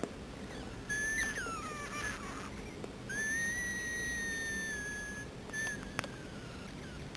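High, thin whistling tones. About a second in come a few short whistles that slide downward, then one long, nearly steady whistle lasting about two seconds, then a short one; a sharp click follows near the end.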